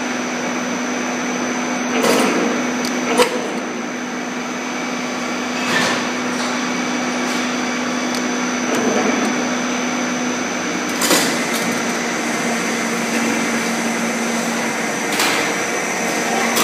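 Double-wire chain link fence weaving machine running, a steady mechanical hum with a high whine, broken by several sharp clacks at uneven intervals as it weaves the wire mesh.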